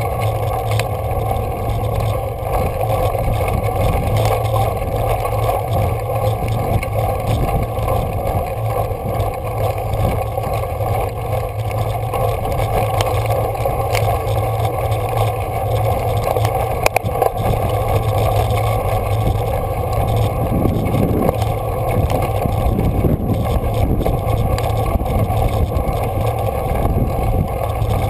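Steady rush of wind and tyre rumble from a road bike rolling along a rough mountain road, heard on the riding camera's microphone, with a few sharp clicks from bumps.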